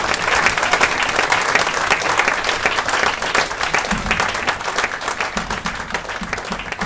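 Audience applauding: dense, steady clapping that slowly fades away.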